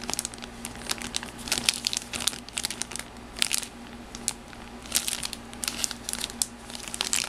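Clear plastic bag around a model kit's plastic parts runners crinkling and crackling irregularly as it is handled and turned over.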